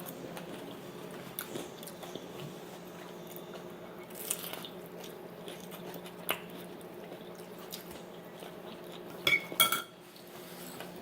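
Quiet eating of fried chicken taquitos: chewing and biting, with a few sharp clicks and taps of dishes or cutlery, the loudest a quick cluster near the end, over a steady low hum.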